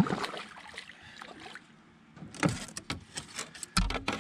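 Handling noise on a plastic fishing kayak: knocks, clatter and water splashing as a fish measuring board is worked in and out of the water. A sharp knock opens it, more knocks and splashing follow about two seconds in, and a dull thump comes near the end.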